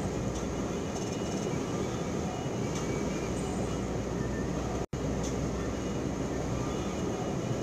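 Steady engine and tyre rumble inside a truck cab driving at road speed. The sound cuts out for an instant about five seconds in, then carries on unchanged.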